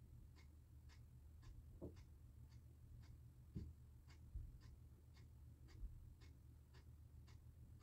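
Near silence: faint room tone with a soft, even ticking about twice a second and a few soft low thumps.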